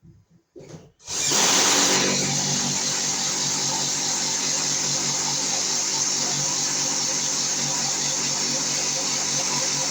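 A few faint knocks, then a battery-powered drill starts about a second in and runs steadily, boring a hole for the switch-loop cable.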